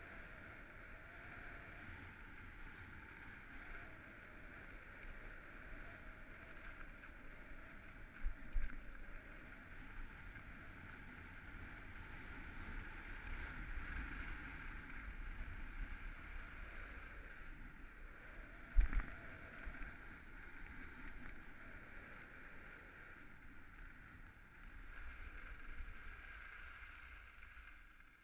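Skis sliding over groomed snow with a steady rushing hiss of wind and snow, with two short low thumps, one about eight seconds in and a louder one about nineteen seconds in.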